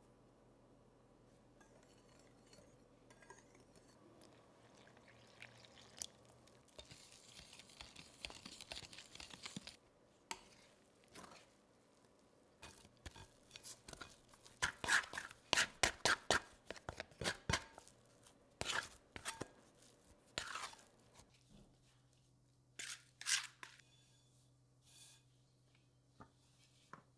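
Light handling sounds: scattered small clicks and taps, a stretch of rustling about seven seconds in, and a quick run of sharp clicks and knocks about halfway through.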